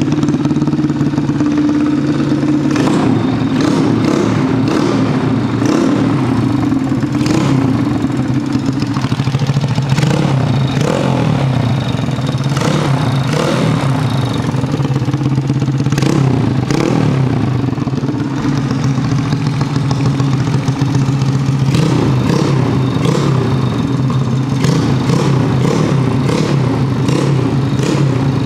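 Daytona 140cc air-cooled single-cylinder engine running through a GL Racing aftermarket exhaust, a steady loud note with lots of sharp clicks and clatter, its pitch rising and falling slightly a few times as the throttle is blipped.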